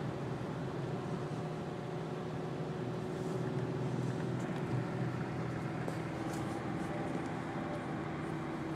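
Subaru XV's flat-four boxer engine running steadily with tyre noise on a snow-covered road, heard from inside the cabin as a steady hum.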